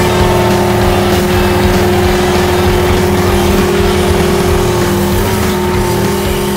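Skid steer engine running steadily while it works a round hay bale on its bale spear, with a steady whine held over the engine.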